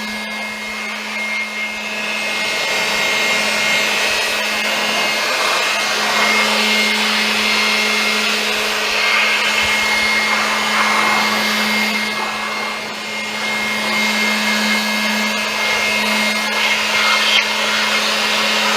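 Electric air blower running steadily with a constant motor hum and a rushing hiss of air, blowing water out of a freshly washed window air conditioner to dry it. It gets a little louder about two seconds in.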